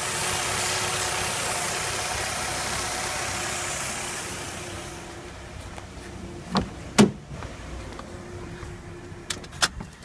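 Nissan Altima engine idling with a high hiss that fades after about four seconds; the engine has a vacuum leak at the valve cover. Then a few sharp clicks and knocks, the loudest about seven seconds in.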